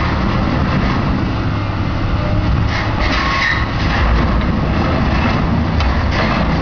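Excavator's diesel engine working hard under load in a steady low rumble, with scattered metallic clanks and creaks, as it pulls an overturned semi-truck back onto its wheels.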